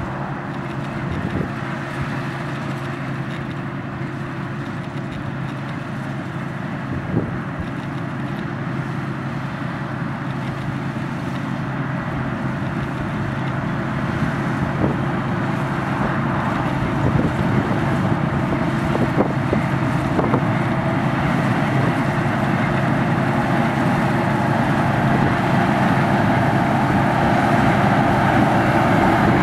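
Diesel engine of a large harvest machine running steadily, with a few faint knocks. It grows gradually louder through the second half as the machine comes closer.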